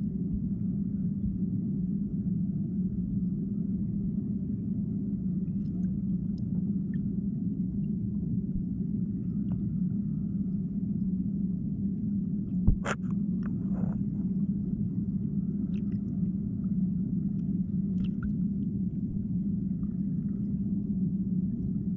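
Muffled underwater river ambience picked up by a submerged camera: a steady low rumble, with a few faint ticks and one sharper click about thirteen seconds in.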